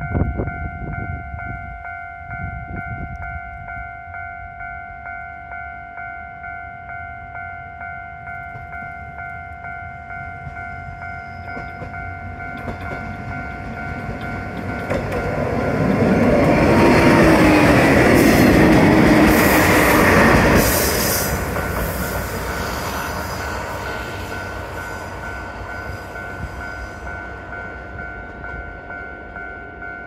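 Japanese level-crossing alarm dinging steadily as a WKT-500 diesel railcar approaches. About halfway through, the railcar runs across the crossing and is loudest for a few seconds, its wheels clattering over the crossing. Its sound then fades away while the alarm keeps ringing.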